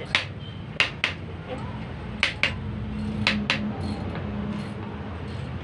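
Sharp metallic clinks of a hand tool striking a dismantled car alternator, several coming in quick pairs, over a low steady hum.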